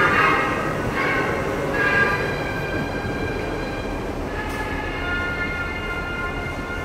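Metro railcar sounds: a steady low rumble of the train with several high steady tones over it that change a few times.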